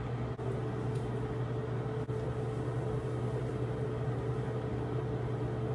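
Steady low electrical hum of a running household appliance or fan, with a faint steady higher tone above it and a couple of faint clicks.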